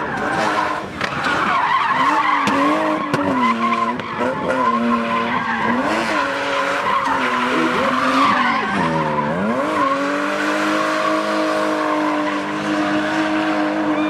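Drifting car's engine revving up and down while its rear tyres spin and squeal, then held at steady high revs from about ten seconds in as the tyres keep screeching through the tyre smoke.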